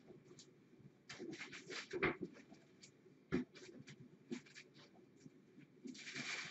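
Brown paper rustling and scratching under cats wrestling and scrambling on it, in several short spells: a cluster of scratches from about a second in, a few single knocks, and a longer rustle near the end.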